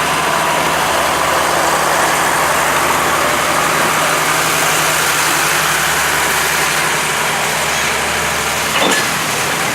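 Heavy engine idling with a steady low hum under a broad hiss. A short knock comes near the end, and the low hum drops away after it.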